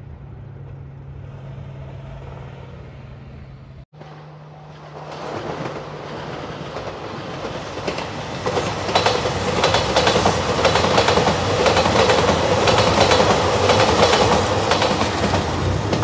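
JR Shikoku 2700 series diesel express train approaching and passing close by. It grows louder from about five seconds in, and in the second half the wheels make a rapid clickety-clack over the rail joints. Before a cut near four seconds, a level-crossing warning bell rings faintly over a low hum.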